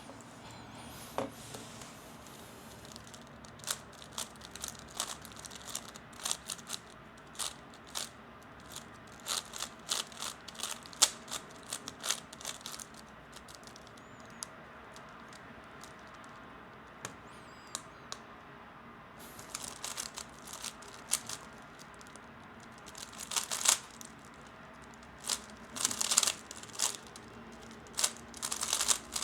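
3x3 Rubik's cube being turned fast by hand: quick runs of plastic clicks as the layers snap round, with a lull of several seconds about halfway through before the turning starts again.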